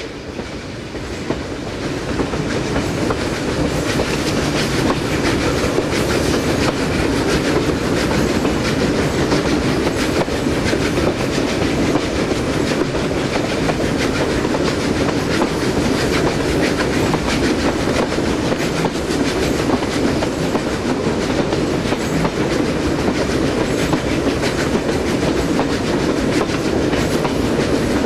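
A passenger train double-headed by steam locomotives 3237 and 5917 running at speed, heard from a carriage window. The wheels keep up a steady rumble and clickety-clack on the rails, building up over the first couple of seconds.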